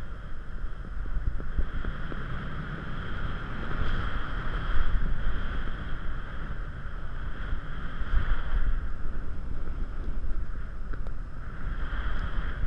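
Airflow of paragliding flight rushing and buffeting over a GoPro Hero 3 camera on the pilot's harness: a gusty low rumble with a hiss above it that drops away about nine seconds in and returns near the end.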